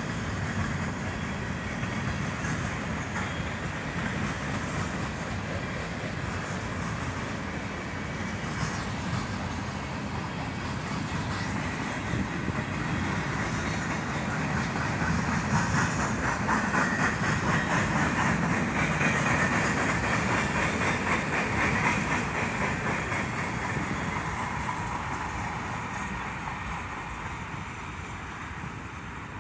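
CN freight train cars rolling past, steel wheels clattering rhythmically over the rail joints. The clatter grows louder in the middle, then fades near the end as the last cars move away.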